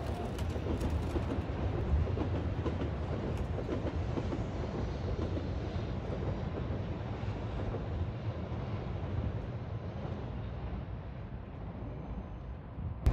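Steady low rumble of trains moving along the tracks, easing slightly near the end.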